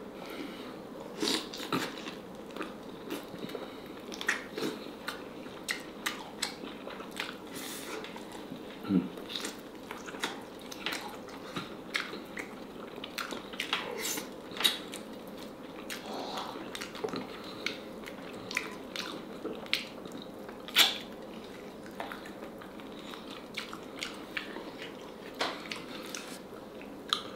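Close-up eating of steamed black chicken: irregular wet chewing with frequent short lip smacks and clicks.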